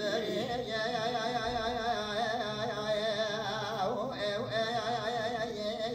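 A dengbêj singer performing Kurdish narrative song in long held notes that waver with heavy vibrato and ornaments. The phrase breaks off about four seconds in, and a new held note starts right after.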